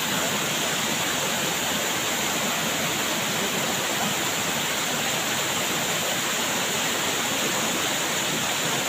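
Water spilling over a low river weir (check dam), a steady rush of falling water with no breaks.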